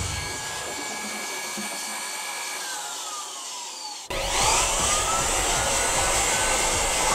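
Handheld leaf blower running with a steady rush of air and a motor whine that slides down as it winds down. About four seconds in it starts again abruptly and louder, its whine rising as the motor spins up to a steady blast.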